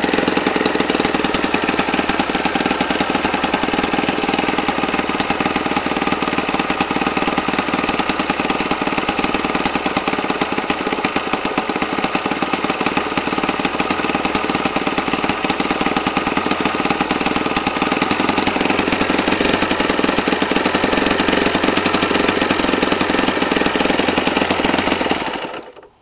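Enya 90 four-stroke glow model airplane engine running unmuffled with an open exhaust, turning a 14x8 propeller at a steady speed and tuned to run without its muffler. Near the end it cuts off suddenly.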